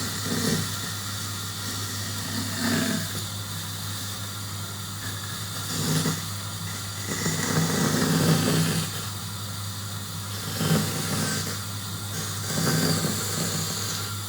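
A woodworking power tool's motor running steadily, with about six louder surges as it bites into the wood.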